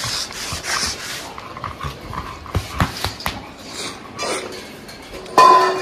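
Dogs at close range: a pocket American bully panting, then a short, loud dog whine near the end.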